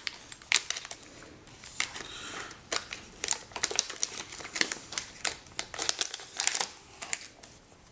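Scissors snipping through a metal foil pouch, with the foil crinkling as it is cut and handled. Irregular sharp snips and crackles.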